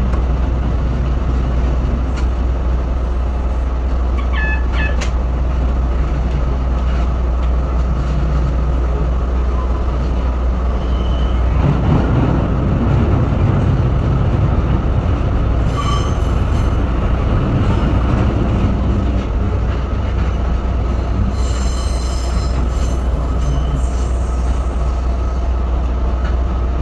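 Train running along the track with a steady, loud rumble, growing louder from about twelve seconds in as it passes through a tunnel. Short high squeals come a few times.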